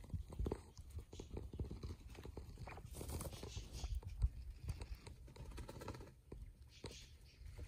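Quails pecking and scratching in soil and bark mulch: irregular soft taps and rustles over a low rumble, with one sharper knock about four seconds in.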